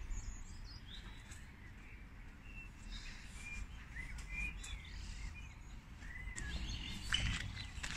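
Small birds chirping in short, scattered calls over a low background rumble, with a few sharp clicks near the end.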